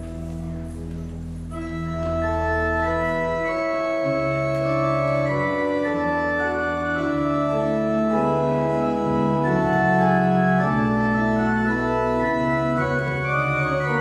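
Church organ playing slow, sustained chords over a low bass line, growing fuller and louder about two seconds in as higher notes join.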